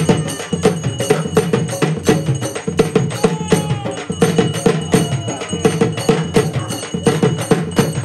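Tamil ceremonial drums played fast, many strokes a second without a break, with a steady metallic ringing above them.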